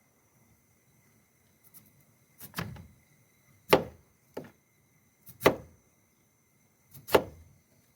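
Four sharp knocks, a knife chopping down onto a cutting board, spaced about a second and a half apart with a few lighter taps between.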